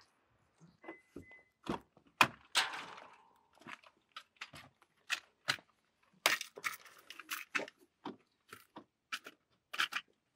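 Irregular sharp clicks and knocks as a car door is opened and the plastic trim panel in the driver's footwell is handled to reach the fuse box, with one short high beep about a second in.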